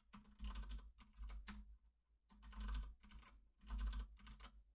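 Computer keyboard typing in four quick bursts of keystrokes with short pauses between them, as a password is entered and then entered again to confirm it.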